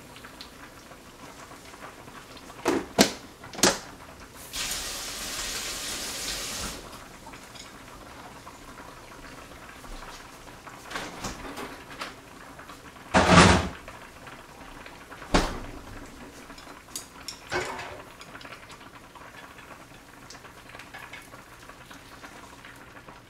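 Kitchen handling noises: two knocks about three seconds in, a two-second hiss, then one loud clatter about halfway through and a few lighter knocks after it, as cookware and utensils are moved about.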